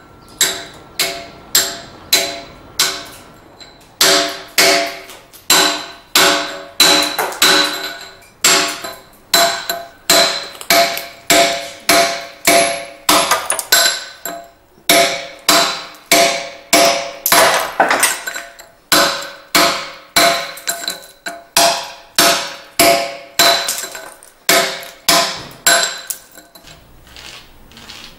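Hand hammer striking a chisel into basalt lava stone during carving: a steady rhythm of sharp, ringing metallic blows, a little under two a second, that stop shortly before the end.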